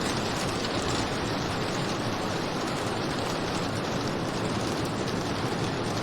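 Steady rain falling: an even, unbroken hiss with faint pattering of drops.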